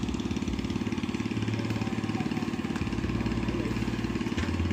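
Small engine of a pond-draining pump running steadily at an even speed. A short tick sounds near the end.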